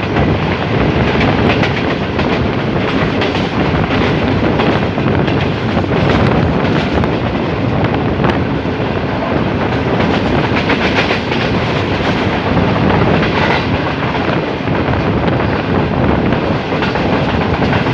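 Jinnah Express passenger train running at speed, heard from an open coach door: a steady rumble of wheels on the rails with scattered clacks over the track joints.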